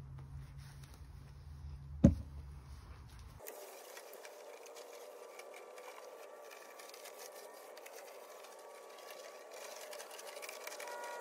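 A sharp knock close to the microphone about two seconds in, over a low rumble. After that comes the faint, fast ticking rattle of a walk-behind broadcast spreader being pushed across the lawn, scattering grass seed.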